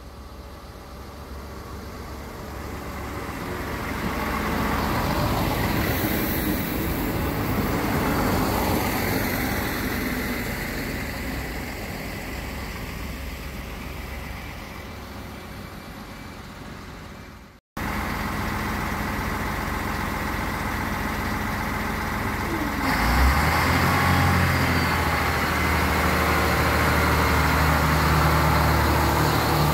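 SNCF X 73500 diesel railcar running as it approaches, its sound swelling and fading over several seconds. After a cut it is close by, its diesel engine running steadily, and a little past two-thirds of the way through a louder, deep engine drone sets in.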